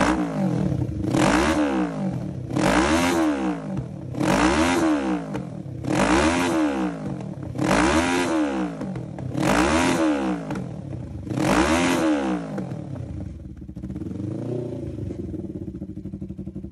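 Grasstrack sidecar's twin-cylinder engine revved through its new stainless steel exhaust: about seven even throttle blips, each rising and falling back, roughly one every second and a half. Near the end it gives one softer blip and settles to idle.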